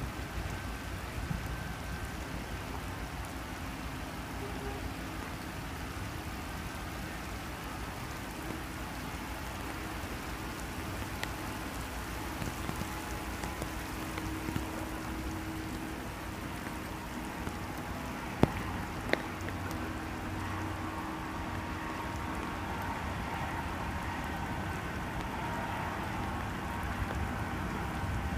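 Steady hiss of rain with wind noise on the microphone, under a faint low steady hum from a passing oil products tanker. Two sharp clicks come about two-thirds of the way through.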